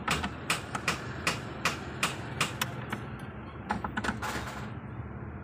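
Hand socket ratchet clicking in quick uneven runs, several clicks a second, as bolts on the hybrid battery unit are undone.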